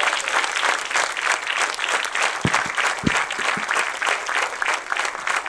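Live audience applauding: many hands clapping steadily, with a few dull low thumps mixed in.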